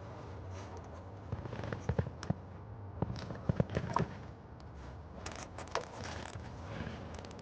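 Plastic zip tie being pulled tight around a wiring bundle: a run of sharp ratcheting clicks between about one and four seconds in, followed by rustling and scraping of the wires.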